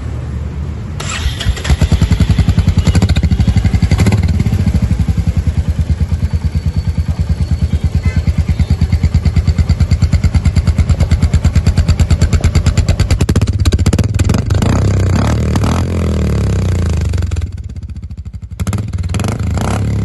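Royal Enfield Meteor 350's single-cylinder engine running through a Red Rooster Performance aftermarket silencer, a fast, even exhaust beat. The note gets much louder about a second in and stays up, dips briefly near the end, then picks up again.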